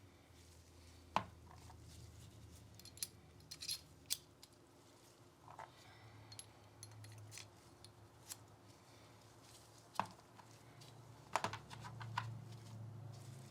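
Small parts and tools of a Glock pistol being handled on a bench: scattered sharp clicks and light taps at uneven intervals, a few in quick clusters, over a faint low hum.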